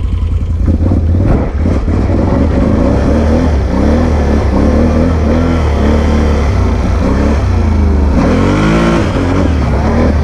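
Can-Am Renegade 850's V-twin engine under way, its revs rising and falling with the throttle, with a quick rev up and back down about eight seconds in. Wind buffets the helmet-mounted microphone throughout.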